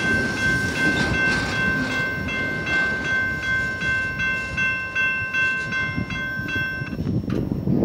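Railroad grade-crossing warning bell ringing, a high repeated ding about twice a second that cuts off about seven seconds in. Under it is the low rumble of the last cars of a freight train rolling away over the rails.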